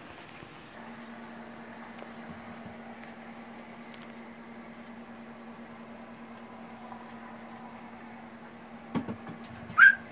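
Steady low hum in a quiet room, with a single knock about nine seconds in and two short, high-pitched rising cries near the end.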